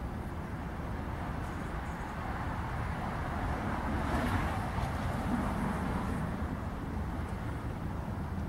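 Road traffic noise: a steady low rumble that swells for a few seconds in the middle, as a vehicle passes.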